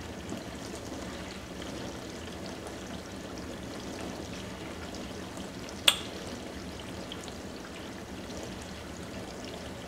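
A steady hiss with one sharp click about six seconds in.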